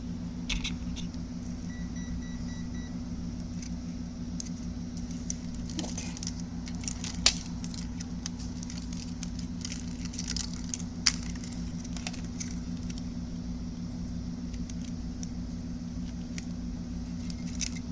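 Light clicks and rattles of small wires, connectors and tools being handled on a repair bench, with two sharper clicks about seven and eleven seconds in, over a steady low hum.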